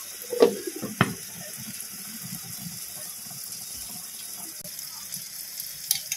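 Steady hiss of cooking on a stove, from the biryani rice simmering covered on a low flame, with irregular low bubbling. Sharp utensil clinks come about half a second and one second in, and again near the end.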